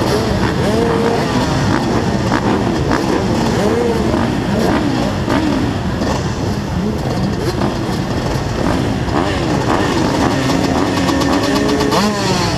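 A line of off-road motocross bikes idling and revving at the start gate, several engines rising and falling in pitch at once as riders blip their throttles before the gate drops.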